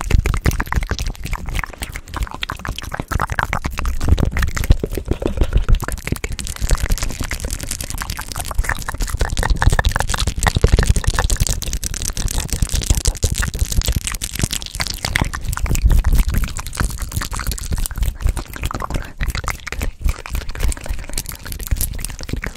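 Fast, wet ASMR mouth sounds, a dense run of clicks and smacks made right against a microphone, with quick hand movements close around it.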